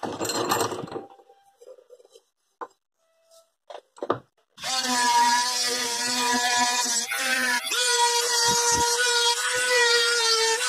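Handheld Craftsman rotary tool starting about halfway through and running with a steady whine as its bit grinds a groove along a steel knife blade; its pitch shifts briefly a few seconds after it starts. Before that there is a short scrape of metal on metal and a few small clicks.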